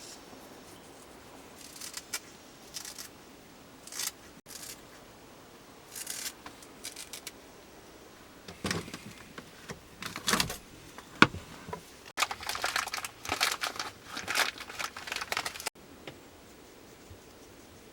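Scattered rustling and light handling noises, with a denser run of crinkling and scraping in the last third.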